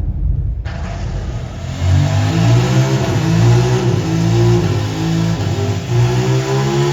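A deep motorcycle engine sound mixed into a loud, throbbing soundtrack whose low pitch steps from level to level, as in a launch promo film. It cuts in sharply about a second in and grows louder about two seconds in.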